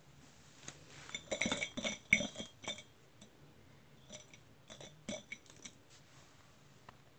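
Quiet metallic jingling and clinking from a playing Shih Tzu puppy, in two short spells: about a second in, and again around four to five seconds in.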